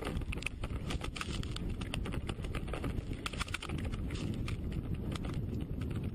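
Snowmobile running, heard from a camera mounted on the machine: a dense low rumble with wind noise on the microphone. Many irregular clattering clicks and knocks run through it.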